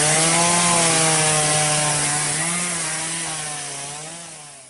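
Two-stroke chainsaw running under load while cutting through a fallen tree, its pitch dipping and recovering as it bites into the wood. It fades out near the end.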